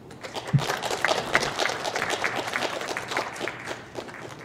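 Audience applauding: a burst of clapping that starts at once, holds for a few seconds and fades near the end.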